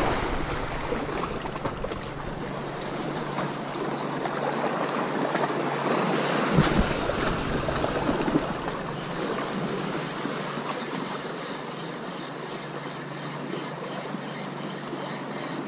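Small waves washing against a rocky shoreline, with wind on the microphone and one brief thump about six and a half seconds in.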